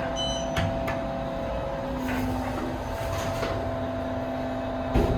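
Steady hum of an elevator cab's ventilation fan and machinery, with a few light clicks and a sharp thump near the end.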